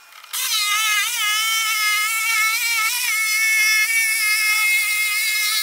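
A roughly 50-year-old electric jigsaw cutting plywood. It is a high, steady motor whine that starts a moment in, and its pitch dips briefly twice as the blade bites into the wood.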